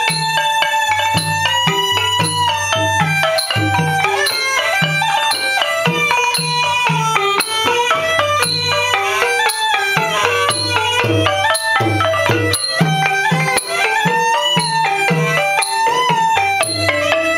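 Cambodian classical pinpeat-style music: a reedy wind instrument plays a wavering, ornamented melody over a steady drum beat and light percussion.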